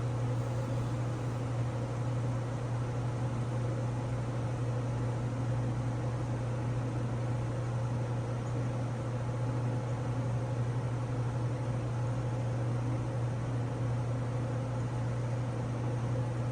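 Peak Scientific AB-3G nitrogen generator running: a steady low hum with an even hiss of air over it, unchanging throughout.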